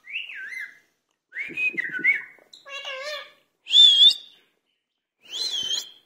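Indian ringneck parakeet giving a run of about five short whistled calls with wavering, gliding pitch, separated by brief pauses; the loudest and highest comes about four seconds in.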